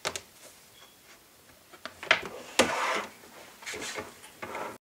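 Plastic cutting pads being slid and pushed into the platform of a Sizzix die-cutting machine: a few sharp knocks with scraping slides between them, and the sound stops abruptly near the end.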